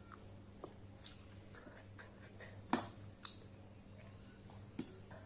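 Close-miked eating sounds: soft, scattered mouth clicks and chewing, with a sharp click about halfway through and another near the end, over a steady low hum.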